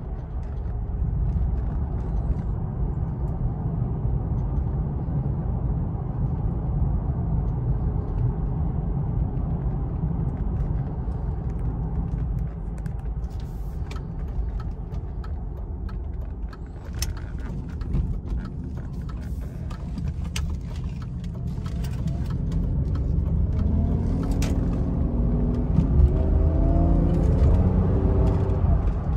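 BMW 750iL V12 heard from inside the cabin while driving: a steady low engine and road rumble, with scattered sharp clicks in the middle. Near the end the engine note rises in pitch and gets louder as the car accelerates.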